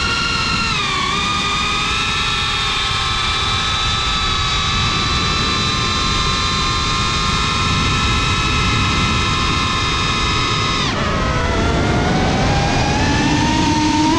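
GEPRC Cinelog 35 FPV drone's brushless motors and propellers whining at a steady pitch, with wind rumble on the onboard GoPro microphone. About eleven seconds in the pitch drops sharply as the throttle is cut, then rises again as the throttle comes back up near the end.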